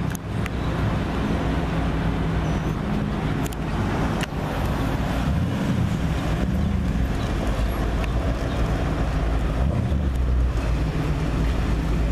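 Engines of classic cars and old pickup trucks driving slowly past, a steady low rumble, with wind noise on the microphone.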